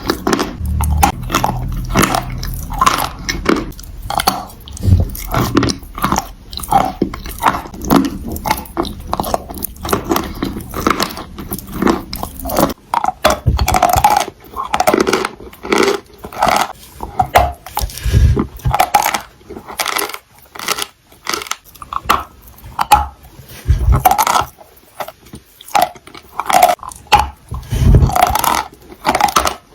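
Crunchy food being bitten and chewed, a dense, irregular run of sharp crunches and crackles.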